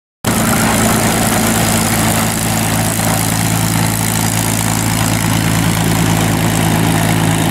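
North American P-51D Mustang's Packard Merlin V-12 engine running steadily at low taxi power, a deep even drone with the propeller turning. It cuts in suddenly a fraction of a second in.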